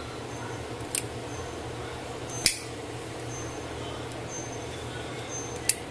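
Steady low room hum with three short clicks, the sharpest about halfway through, from a hand-held lighter being worked to heat-seal the cut edge of a synthetic fabric strip.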